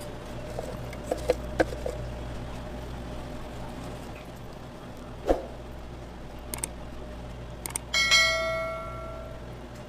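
Steady background hum with a few light clicks and knocks. Near the end comes a click sound effect, then a bright bell ding that rings out and fades over about a second and a half: the notification-bell sound of a subscribe-button animation.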